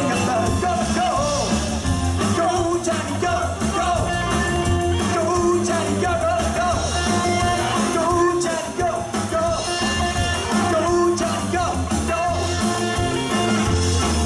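Live rock and roll band playing, with singing over electric guitar, bass guitar and a drum kit.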